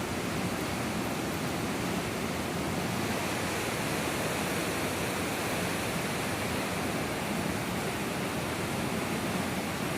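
Rushing river water: an even, unbroken roar of fast-flowing water.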